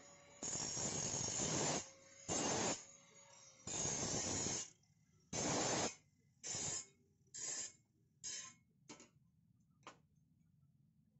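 Handheld angle grinder with a flap disc grinding along the edge of a steel spade blade to sharpen it. It makes a run of about nine hissing passes of abrasive on metal that grow shorter and shorter, then stop about ten seconds in.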